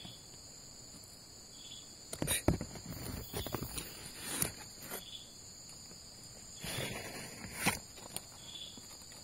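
Steady, high-pitched chorus of night insects such as crickets and katydids, with a soft chirp repeating about every two seconds. Over it come bursts of rustling and a few sharp knocks, the loudest about two and a half seconds in.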